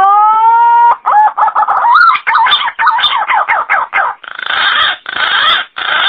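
Green pigeon (punai) calls: one long rising whistle, then a quick run of warbling notes, then three harsh rasping calls near the end.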